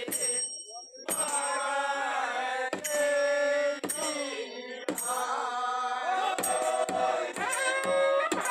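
A group of men singing a Kumaoni Holi song together, the held notes bending as the verse moves on, with sharp percussion strokes about once a second.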